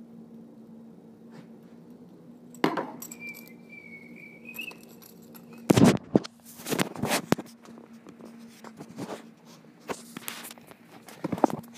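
Handling noise from a phone being picked up and carried: irregular knocks, bumps and rubbing, the loudest a sharp knock a little before halfway. A steady low hum runs underneath, and a faint wavering squeal is heard briefly about three seconds in.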